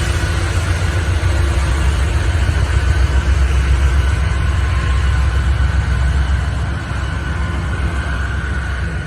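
A train passing close by: a heavy, steady low rumble with faint drawn-out higher tones over it.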